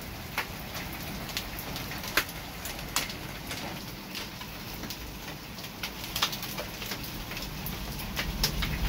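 Steady rain with hailstones striking in many sharp, irregular clicks during a severe thunderstorm.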